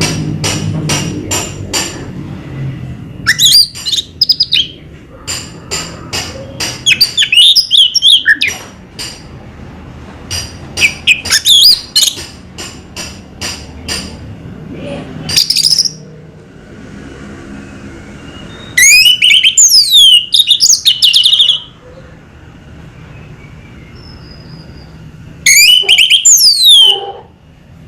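Orange-headed thrush singing: loud bursts of fast, varied song phrases full of quick downward-sweeping whistles, separated by pauses of a few seconds. It opens with a run of rapid, evenly repeated sharp notes.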